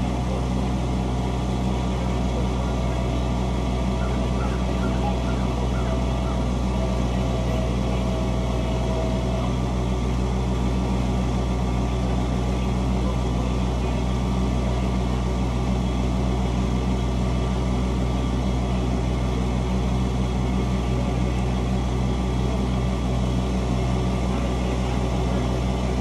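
Engine of a Dingo compact utility loader idling steadily, an even mechanical drone with a constant pitch.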